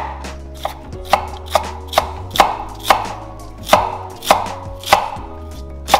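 Chef's knife slicing cabbage into strips on a wooden cutting board, with about eleven sharp knocks of the blade on the board, roughly two a second.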